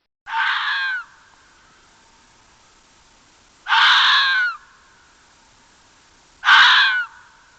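An animal calling three times, each a harsh call of under a second, a few seconds apart.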